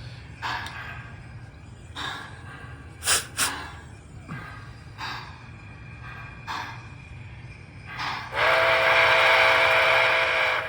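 An MTH model steam locomotive's sound system playing a few short hisses and clicks, then near the end blowing a loud chime steam whistle with a hiss for about two seconds.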